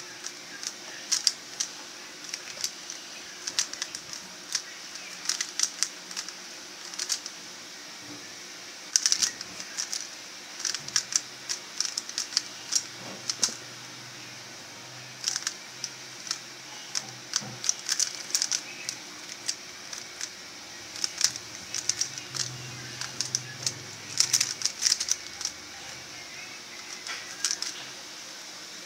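Plastic 3x3 Rubik's cube being turned by hand: its layers click and clatter in quick irregular runs of turns with short pauses between.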